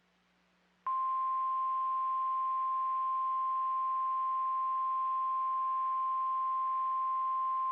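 NOAA Weather Radio's 1050 Hz warning alarm tone: one steady high-pitched beep that starts abruptly about a second in and holds unbroken, over faint radio hiss. It is the signal that a warning message is about to be broadcast.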